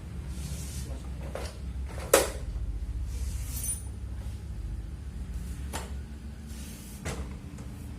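Metal parts of a cup sealing machine handled during disassembly: a few sharp clicks and knocks, the loudest about two seconds in, with short sliding scrapes, over a low steady hum.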